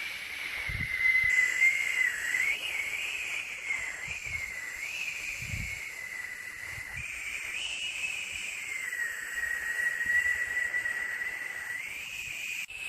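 Steady white-noise hiss for lulling a baby to sleep, with a whistling tone that wavers gently up and down in pitch and a few faint low thumps.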